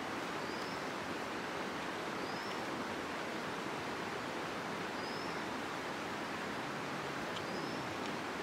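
Steady rush of river water, with a bird's short rising whistle repeating every two to three seconds.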